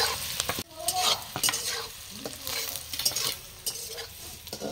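Onions with freshly added red chilli powder sizzling in hot oil in a kadai, stirred and scraped around the pan in irregular strokes, as they are slowly stir-fried (kosha).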